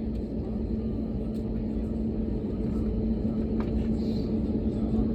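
Airbus A321neo's engines and airframe rumbling as heard from inside the cabin, with a steady hum, slowly getting a little louder as the airliner readies for takeoff.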